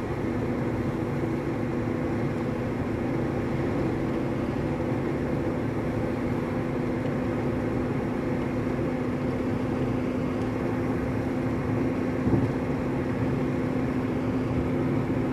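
Car driving at steady speed, heard from inside the cabin: a steady engine drone over road and tyre noise, with one brief thump about twelve seconds in.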